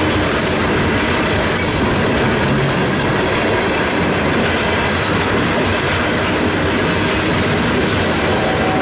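Loaded CSX rock train's open-top hopper cars rolling past at close range: a loud, steady noise of steel wheels on rail.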